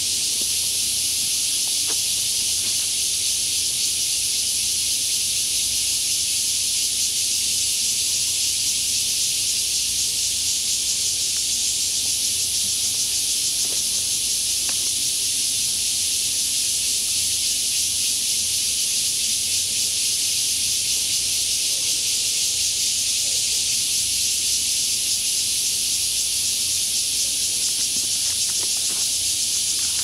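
A dense chorus of insects in forest: a continuous high, even hiss that holds at one level throughout.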